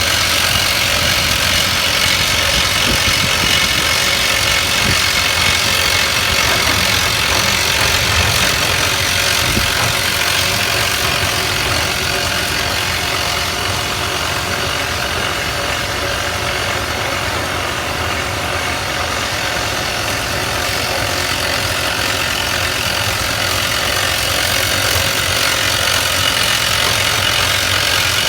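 Hard-rock drilling machine running steadily, with a rapid, continuous mechanical hammering over its engine.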